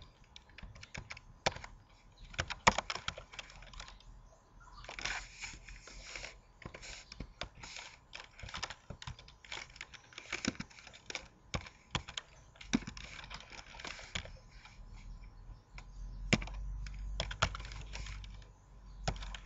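Typing on a computer keyboard: irregular keystrokes at an uneven pace, a few taps louder than the rest.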